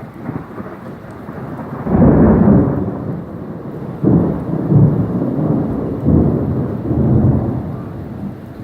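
Thunder rolling in several loud rumbling swells, the strongest about two seconds in, over steady rain.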